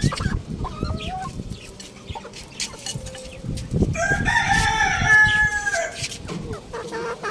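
Young rooster crowing once, a call about two seconds long that starts about four seconds in, with short clucks and chirps before and after it.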